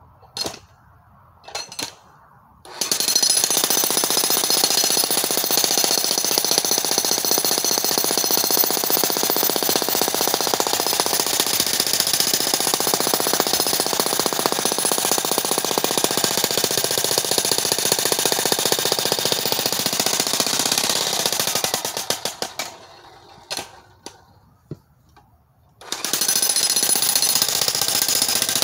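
Corded electric demolition hammer chiselling into rock, its rapid hammering running continuously. After two short starts it runs steadily for nearly twenty seconds, stops with a few brief taps, then starts up again a few seconds before the end.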